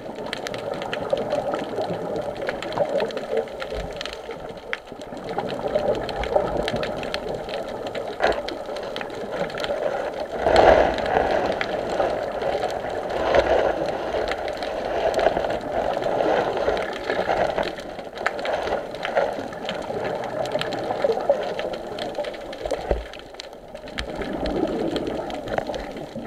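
Underwater noise heard through a camera's waterproof housing: a steady muffled rushing with fine crackling, swelling every few seconds.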